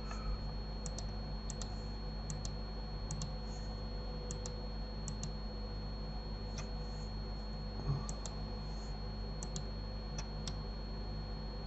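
Computer mouse clicks, about a dozen, mostly in quick press-and-release pairs at irregular intervals, over a steady low hum.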